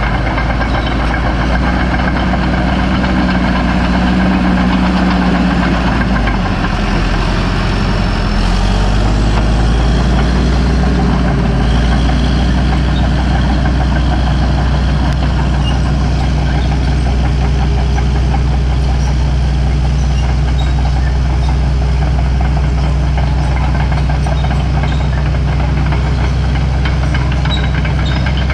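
Caterpillar D4H crawler dozer's diesel engine running steadily as the dozer works, with a shift in engine pitch about six to eight seconds in.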